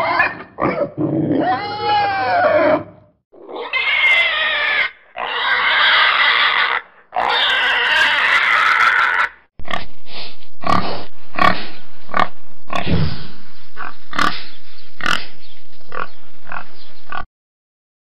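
Pigs grunting and squealing. A few seconds of grunts give way to three long, high-pitched squeals, then a quick run of short grunts and squeals that cuts off suddenly near the end.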